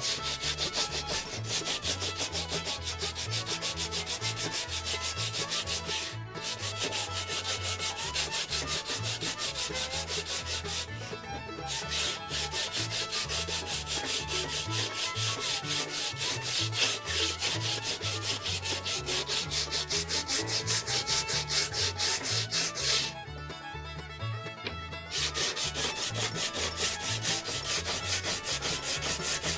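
Sanding block rubbed by hand in quick back-and-forth strokes along a glued rod blank, sanding off excess dried glue. The strokes go on steadily with a couple of brief stops and a pause of about two seconds late on.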